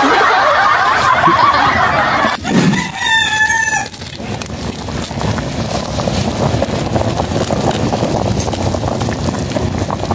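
Boys laughing at first, then a rooster crows once about three seconds in. After that comes a steady bubbling hiss from a big pan of goat papaitan at a rolling boil.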